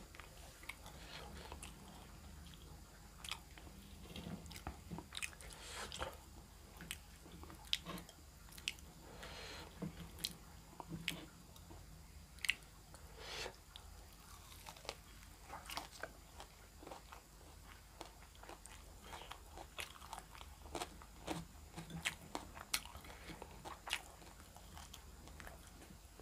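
Close-miked chewing and crunching of food, with many irregular sharp mouth clicks and smacks.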